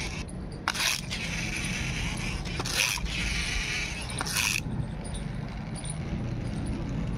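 Plastic pull-back toy bus being dragged backwards on concrete, its spring motor winding with a rasping whirr in three short strokes; about two thirds of the way in the rasping stops as the bus is let go.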